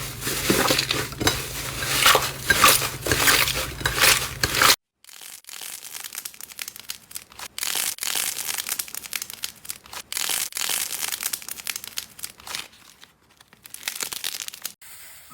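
Slime being squeezed and pressed by hand, giving dense crackling and popping. It stops abruptly about five seconds in and gives way to quieter, sparser crackles and pops.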